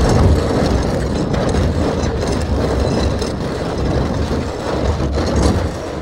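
Empty steel barrel rolling across a hard floor: a continuous low rumble with rattling, clattering metal on top, starting to fade near the end.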